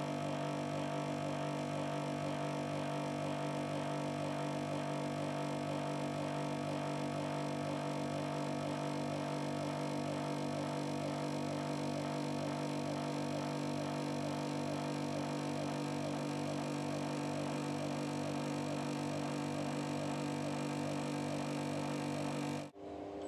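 FERM bench grinder with a felt polishing wheel, its electric motor running with a steady, even hum while an ABB industrial robot polishes a part on the wheel. The hum cuts off abruptly near the end.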